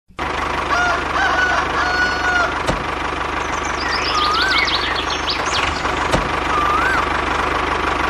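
A rooster crowing early on, with small birds chirping about halfway through, over a steady low engine-like hum. Two sharp clicks come near 3 s and 6 s.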